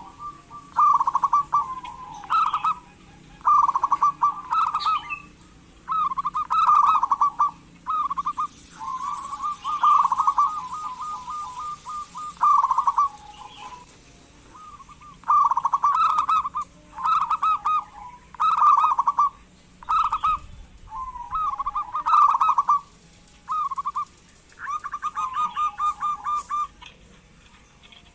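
Zebra dove (perkutut) calling: repeated bursts of rapid, rolling cooing trills with short pauses between, one longer run about halfway through.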